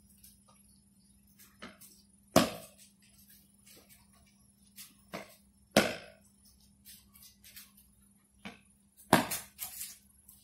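Badminton lunge footwork on a tiled floor: three loud stamps about three and a half seconds apart as the player lunges out with the racket, with lighter footsteps and shoe taps between them.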